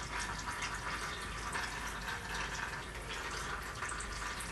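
Old, dirty fork oil pouring and dripping out of a Showa dual-cartridge fork tube into a drain pan, a steady pouring sound while the fork is drained for a seal and bushing replacement.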